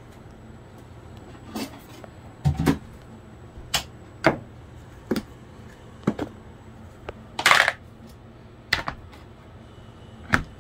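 Handling of a plastic food container with a snap-on lid on a wooden board: a series of separate knocks and clicks, with one short scraping rustle a little past the middle, over a low steady hum.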